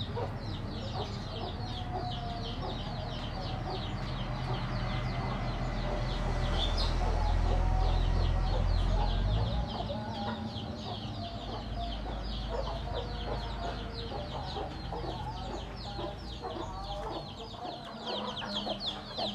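Chickens clucking, with a steady low rumble underneath that swells toward the middle and then drops off abruptly.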